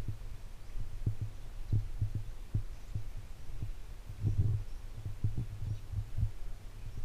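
Low, muffled thumps at an uneven rate, several a second, over a steady low rumble: the handling and footstep noise of a camera carried by someone walking.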